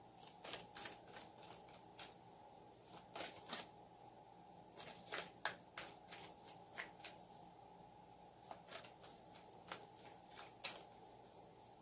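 A deck of oracle cards being shuffled by hand: faint, irregular flicks and slaps of the cards, with a few quicker flurries.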